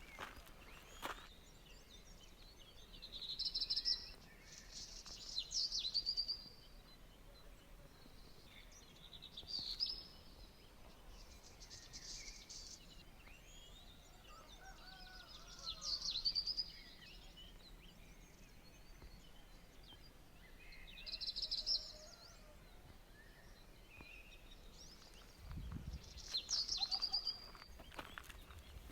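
A songbird singing short, high phrases every few seconds over a faint outdoor background, with a brief low rumble near the end.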